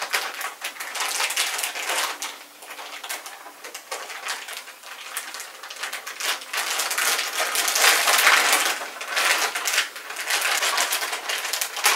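Clear plastic packaging crinkling and rustling as it is handled and opened by hand, in a steady run of irregular crackles.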